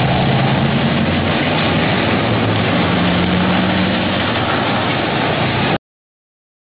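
Steady, loud vehicle rumble with a low hum underneath, cutting off abruptly near the end.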